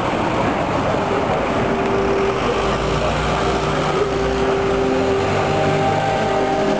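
Cars passing close by, their engine and tyre noise over a military brass band of guardsmen playing long held notes that begin about a second in.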